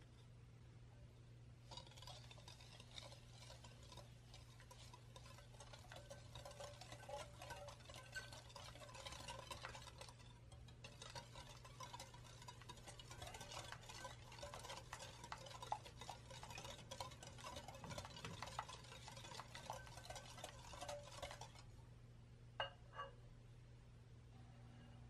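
A stainless wire whisk stirring granulated sugar into beaten eggs in a glass bowl, its wires clicking and scraping rapidly against the glass, with a brief pause about halfway. The whisking stops a few seconds before the end, followed by two light taps.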